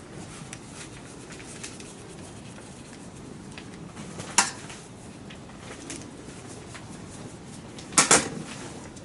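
Metal tools and small metal parts clinking: a single sharp clink about four seconds in and a quick double clink near the end, over a low steady background.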